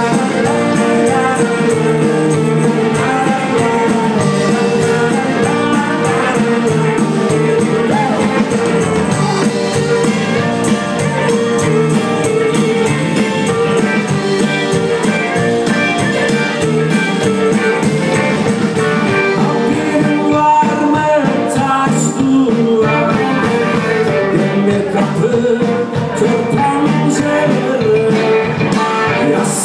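Live band playing an instrumental break, a clarinet lead over electric guitar and drums.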